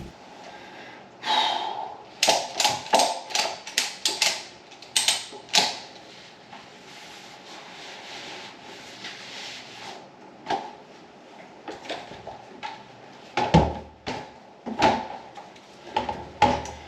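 A quick run of sharp clicks and knocks over the first few seconds, then scattered knocks, with a few louder thuds near the end: objects being handled and set down.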